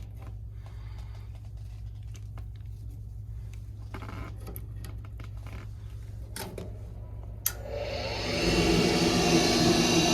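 Low steady hum with a few faint clicks, then a sharp click about seven and a half seconds in and a Ruud LP gas furnace's motor spinning up over about a second to a steady whirring run as the furnace starts its cycle on a call for heat.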